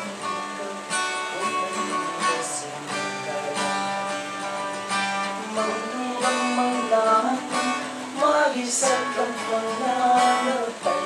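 Acoustic guitar strummed in steady chords, with a man's voice singing along from about six seconds in.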